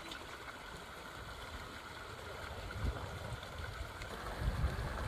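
Creek water rushing steadily over a shallow crossing. A low rumble on the microphone builds from about halfway through and peaks twice near the end.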